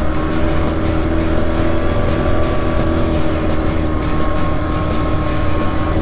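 Suzuki Birdie 50 moped's small single-cylinder engine running at a steady pitch while riding along, with a strong low rumble underneath.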